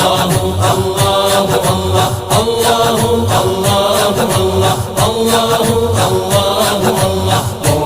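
Background music: a devotional Islamic naat, with voices chanting and singing over a steady, repeating low rhythm.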